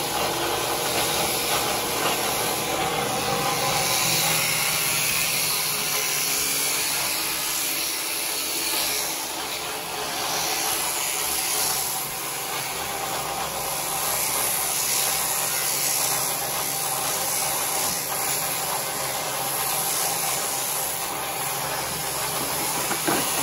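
Electric sheep-shearing handpiece running steadily while it clips the fleece off a sheep: a continuous motor hum with a hiss over it.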